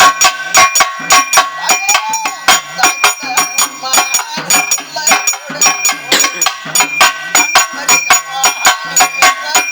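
Pambai drum music: a fast, steady run of drum strokes, about four to five a second, with ringing metallic tones held over it.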